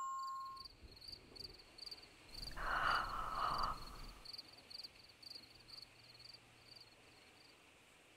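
Crickets chirping steadily, about three chirps a second, as a struck chime rings out at the start. A brief rushing noise, the loudest sound here, comes in about two and a half seconds in and lasts about a second.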